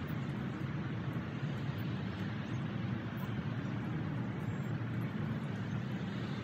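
Steady hum of distant road traffic, with no distinct events.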